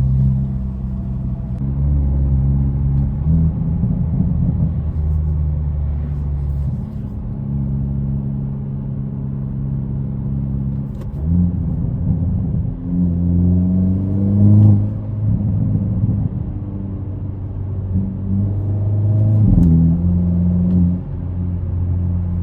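2022 Hyundai Elantra N's 2.0-litre turbocharged four-cylinder on its stock exhaust, revving up and dropping back several times. A few sharp exhaust pops and crackles come as the revs fall.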